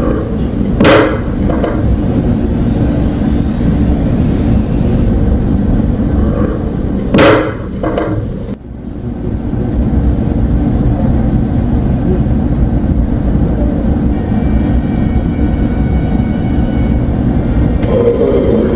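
A steady low rumble broken by two loud bangs, one about a second in and a heavier one about seven seconds in.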